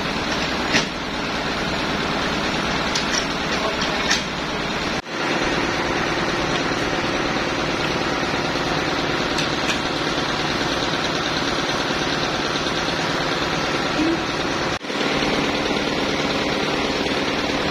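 An engine running steadily at a constant speed, with a few light knocks in the first few seconds. The sound cuts out for an instant twice.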